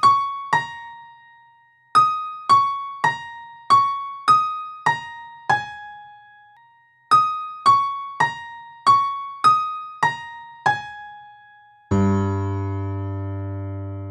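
Music: a slow electric piano melody of single bell-like notes in two phrases, ending on a low held chord that fades out.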